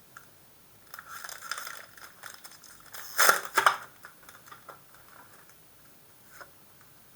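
Pokémon card packaging and cards being handled: crinkling and rustling, with a louder crackling burst about three seconds in, such as a booster pack's wrapper being torn or crumpled.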